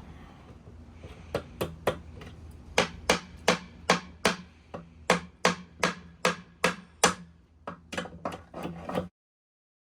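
A hammer driving nails into wood: a few strikes, then a steady run of about three blows a second, then quicker, lighter taps, cut off abruptly near the end.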